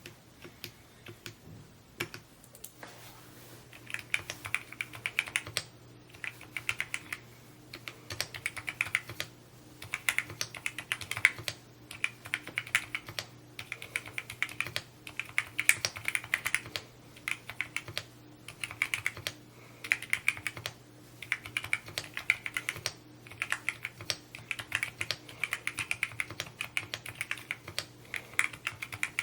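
Typing on a Mode Encore 2 mechanical keyboard: fast, continuous keystrokes in runs with brief pauses between them.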